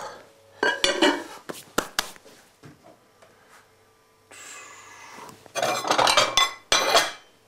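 Crockery and cutlery clinking and clattering on a kitchen worktop as things are cleared away, in several separate bursts. The densest clatter comes near the end, as a bowl is taken down from a cupboard shelf.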